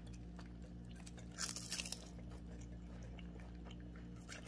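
Cat crunching and chewing dried seaweed snack, with one louder, crisp crunch about a second and a half in.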